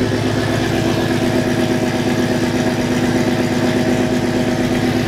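Ford Mustang GT's Coyote 5.0 V8, straight-piped through long-tube headers, a Corsa X-pipe and a muffler delete, idling steadily after a cold start with a loud, even exhaust pulse.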